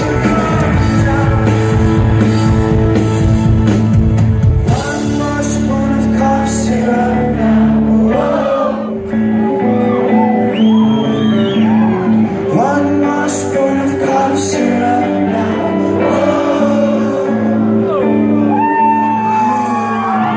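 Live indie rock band playing with singing, heard in a large hall. About five seconds in, the drums and bass drop out, leaving sustained chords under the vocals and shouts.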